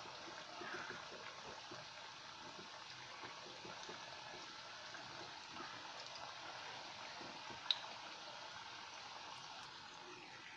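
Bhakarwadi rolls deep-frying in hot oil on a low flame: a faint, steady bubbling sizzle, with one sharp click about three quarters of the way through.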